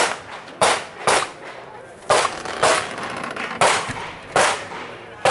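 Gunshots fired in quick pairs, about seven sharp cracks with roughly half a second between the shots of a pair, in the manner of handgun double-taps on a practical shooting stage.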